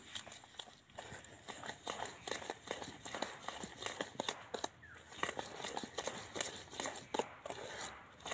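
Metal spoon stirring semolina into an egg-and-sugar batter in a stainless-steel bowl: quick, irregular clicks and scrapes of spoon against steel, several a second.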